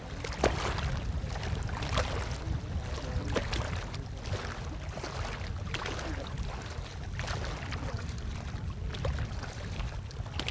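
Field sound over open water: a steady low rumble with scattered short knocks and splashes as fishermen work bamboo poles from a wooden dugout canoe.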